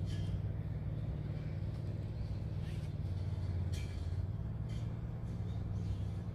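A steady low engine hum, an unseen motor running at a constant speed, with a few short faint ticks over it.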